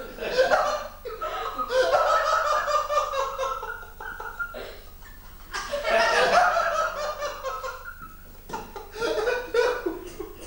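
Laughter in four long fits, pulsing and pitched like a single voice rather than a crowd.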